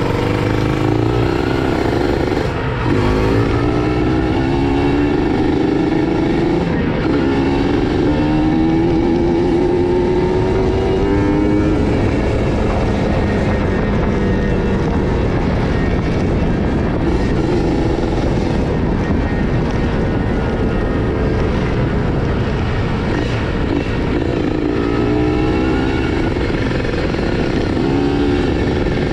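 Kawasaki Ninja RR motorcycle's two-stroke single-cylinder engine running during warm-up, the revs rising and falling several times, with a slow climb in pitch from about eight to eleven seconds in.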